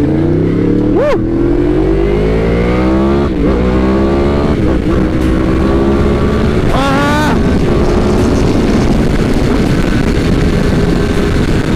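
2018 Yamaha R1's crossplane inline-four engine pulling away under acceleration. Its note rises over the first few seconds, then holds roughly steady at speed.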